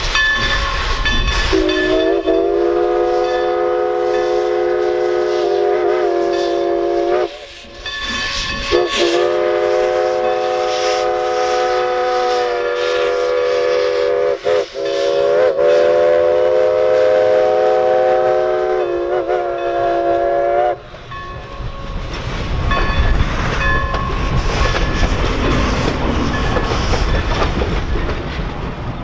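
Steam locomotive whistle blowing two long blasts, one of about five seconds and one of about twelve. Each slides up in pitch as it opens and wavers before it cuts off. About two-thirds of the way through the whistle stops, and the train's steady rolling noise takes over, with the clickety-clack of wheels over rail joints.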